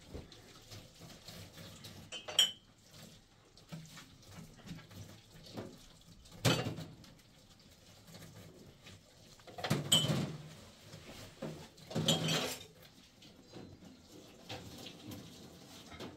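A few separate clinks and knocks of handled household objects such as dishes or pots, one early on with a short bright ring and the loudest ones in the second half.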